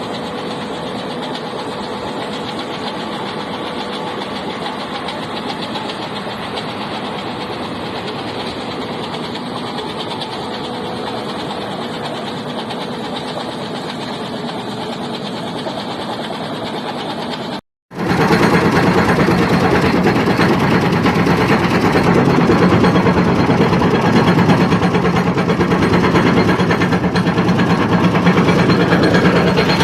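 A construction machine's engine running steadily as it works a hydraulic bucket crusher attachment. After a brief cut about 18 seconds in, the machine noise is louder.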